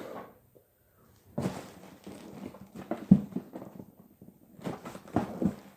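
Knife cutting at a model-car box and its packaging, with irregular knocks, clicks and rustles as it is handled. Near silent for about the first second, with one sharp knock about three seconds in the loudest.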